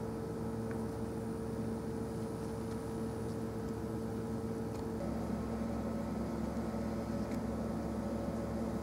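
Steady machine hum holding several steady tones. The mix of tones shifts about five seconds in.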